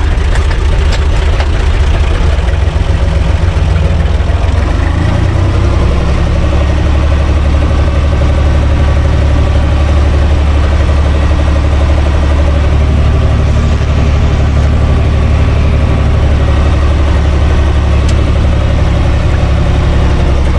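Universal U445 DT 4x4 tractor's diesel engine running as the tractor drives slowly, heard from inside the open cab. The engine note changes about five seconds in, then holds steady.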